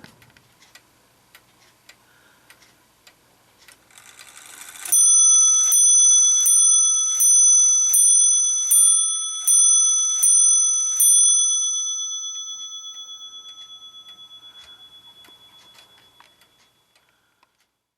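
Weight-driven OG clock movement ticking, then its striking train whirs into action about four seconds in and strikes its bell about nine times, roughly one blow every three quarters of a second. The last stroke rings on and slowly fades away.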